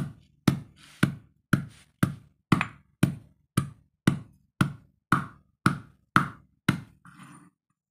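Stone pestle pounding into mashed food in a granite mortar, a steady beat of about two knocks a second, fourteen strokes in all. Near the end the pounding stops and gives way to a brief, softer scraping.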